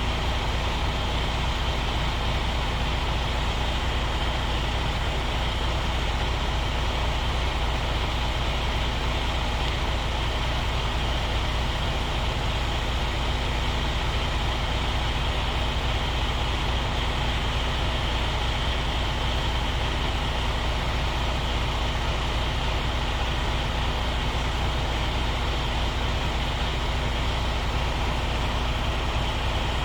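Semi truck's diesel engine running steadily, a deep, even rumble with a constant hum.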